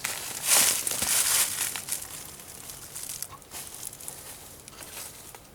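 Crackling, crunching rustle of wood debris and broken branches coming down after an exploding-target blast in a tree. It is loudest for about a second near the start, then thins out to scattered crackles.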